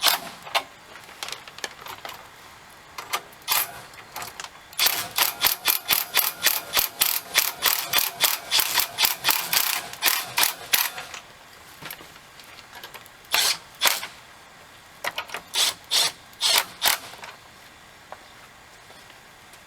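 Rapid ratcheting clicks in several bursts, about five a second, the longest lasting about six seconds, as the grille-insert brackets are fastened down.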